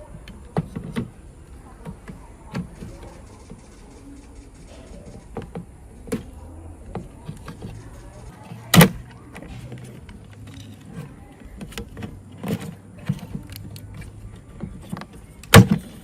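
Handling noise of tools and parts: irregular light clicks and knocks, with two sharper knocks, one about nine seconds in and one near the end.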